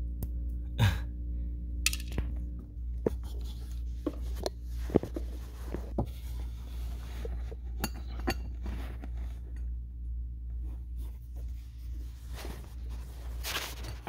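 Scattered small clicks and metallic clinks from handling rusted washers and working in a car footwell under the carpet. A stronger knock comes near the end. A steady low hum runs underneath.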